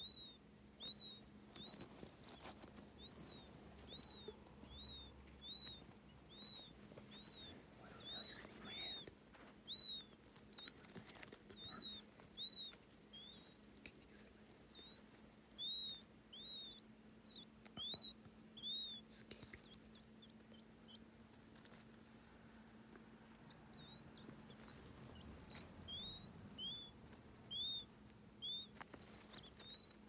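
Newly hatched quail chicks peeping: a string of short, high, rising-and-falling peeps, about one or two a second, with a short lull past the middle. A faint steady low hum runs underneath.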